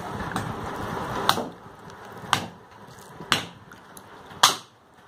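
Stone roller knocking down onto a flat stone grinding slab, four sharp strikes about a second apart, the last the loudest.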